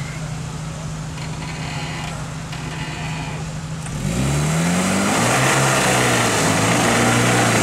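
A Suzuki Vitara off-roader's engine running at a steady low speed, then revved harder about four seconds in, its pitch rising and falling as it pulls the vehicle up a steep slope under load.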